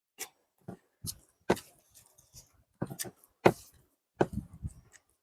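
Close-miked eating sounds of a mouthful of biryani and chicken curry: wet chewing and lip smacks in irregular short clicks.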